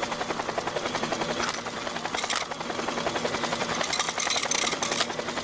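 Cartoon sound effect of a small flying craft: a steady, fast rotor-like chopping whir, with a few brief whooshes over it.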